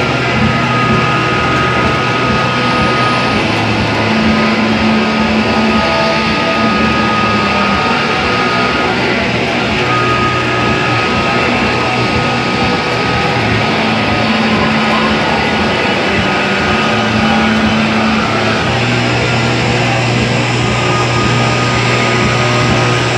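A live band playing loud, dense rock music: electric guitars, bass, drums and accordions, with long held notes that shift every few seconds.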